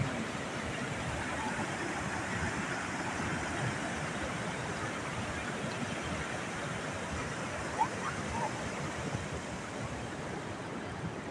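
Floodwater pouring over a dam spillway and churning through the rapids below: steady rushing water.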